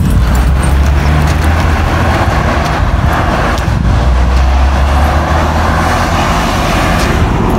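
Road vehicle running: a steady, loud low rumble of engine and road noise.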